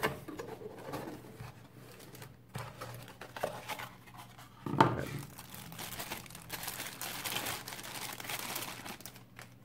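Crinkly packaging rustling and crackling in the hands as a digital camera is unwrapped, in irregular bursts, with one louder bump about five seconds in.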